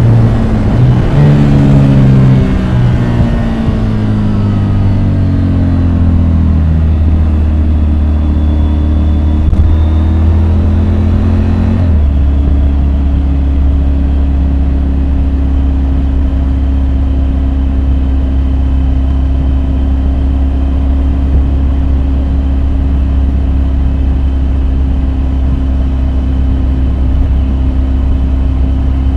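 Triumph Tiger 850 Sport's inline-three engine, heard from the rider's position. Its revs fall in a long steady glide, then about twelve seconds in it changes abruptly to a steady low drone that holds.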